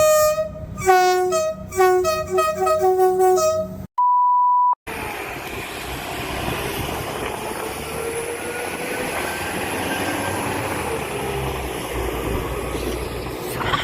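Train's two-tone horn sounding a rapid string of short blasts that alternate between a low and a high note for about four seconds. It cuts off into a single steady electronic beep lasting about a second, followed by the steady rumble and rush of a moving train.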